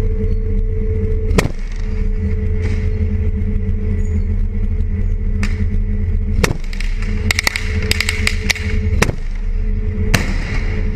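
Heavy armoured vehicle's engine running steadily close up, with single gunshots cracking now and then, a quick burst of automatic fire about seven to eight seconds in, and a heavy gun blast about ten seconds in.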